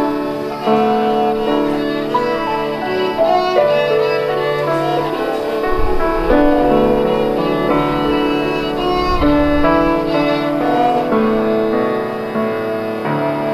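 Piano trio playing: violin and cello bowing long, held melody notes over a Yamaha grand piano accompaniment.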